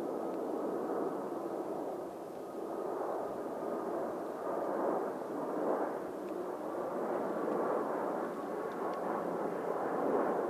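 Jet airliner engines running with a steady rumble and a faint high whine, swelling a little in loudness now and then.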